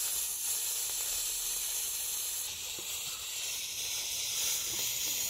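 Steady hiss of the lit firework or fuse burning at the top of a model volcano, shifting slightly in tone about halfway through.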